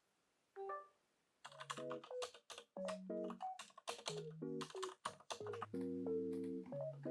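Background music: a light keyboard melody of short, sharply struck notes with crisp clicks on the attacks. It starts about a second and a half in, after a single note about half a second in.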